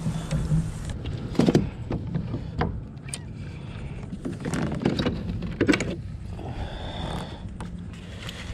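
Knocks and rattles of a landing net and a freshly caught flounder being handled aboard a plastic kayak, a few sharp clunks among softer rustling, over a steady low rumble.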